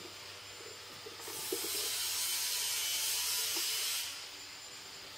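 Engine oil draining out of a BMW 323i E46's sump into a drain pan, a steady hissing splash. It grows louder about a second in and eases back about four seconds in, as the oil-filter housing cap is unscrewed and lets air in. A few faint clinks sound under it.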